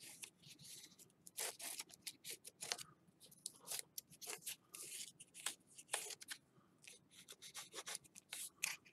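Tracing around a paper template with a writing tip on a sheet of paper: faint, quick, irregular scratchy strokes with light rubbing of paper.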